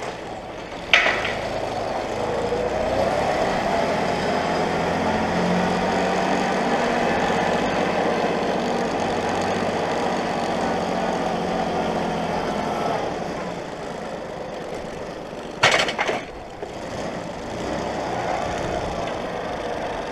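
Massey Ferguson 1523 compact tractor's three-cylinder diesel engine running while pushing a slurry scraper over concrete, its pitch rising and then falling. Two sharp clanks break in, one about a second in and one near the end.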